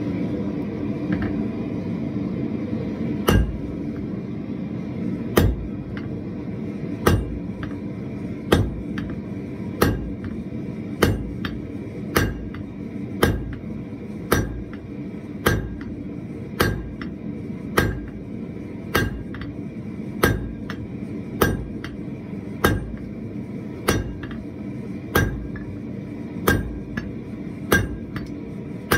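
Hand hammer striking a red-hot bar on an anvil, about one blow a second, starting about three seconds in. A lit forge gives a steady noise underneath.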